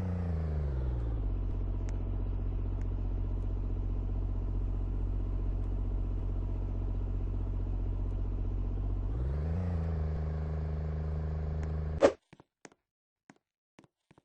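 A machine humming steadily at a low pitch; the pitch drops about a second in, holds, and rises again near the end, then the hum cuts off at a single loud click, followed by a few faint clicks.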